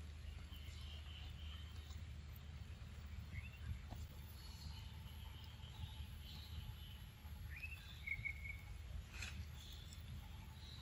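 Faint outdoor ambience: a steady low rumble with scattered faint high chirps. A short rising call comes about three seconds in, and a longer one rises and holds near eight seconds.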